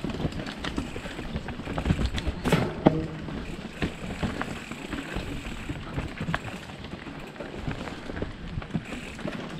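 Mountain bike rolling over a rough, rocky trail: tyres crunching on dirt and stone, with the chain and frame rattling and scattered knocks from rocks and roots, the sharpest about three seconds in.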